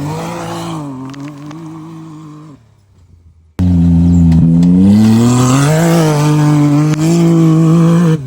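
Can-Am UTV's turbocharged three-cylinder 1000 cc engine revving through a turn, first fairly quiet with the exhaust valve closed, giving the stock sound. About three and a half seconds in it cuts suddenly to a much louder pass with the Nova Racing exhaust valve open, the engine note rising and falling as it accelerates and eases off.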